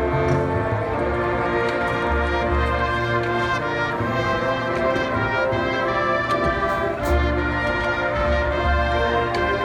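High school marching band playing, led by brass (trumpets, trombones, horns) with long held low bass notes and scattered percussion hits.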